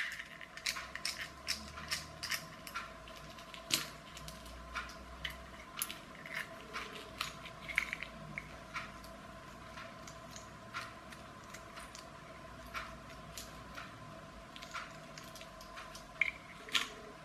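Tiny screws being undone with a precision screwdriver and the small plastic parts of a clockwork toy's piston assembly handled and set down on a tabletop: a string of light clicks and ticks, thicker in the first half, with two louder clicks near the end.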